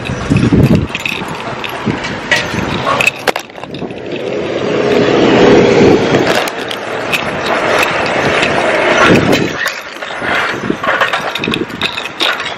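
Handling noise from a camera carried against the body while walking: the microphone rubs and bumps on clothing and hair with many scrapes and knocks. A louder rush swells around five seconds in.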